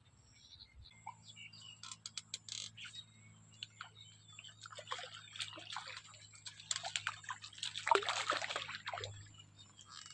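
Water splashing and sloshing in repeated bursts, loudest near the end, as a hooked tilapia thrashes at the surface. A steady low hum runs underneath from about a second in.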